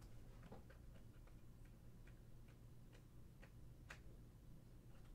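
Near silence with faint, irregular light ticks from trading cards being handled, about a dozen in the first four seconds, the clearest near the four-second mark.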